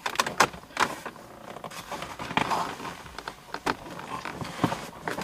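Handling noises: scattered clicks, taps and rustling, as of plastic tools and parts being picked up and moved about.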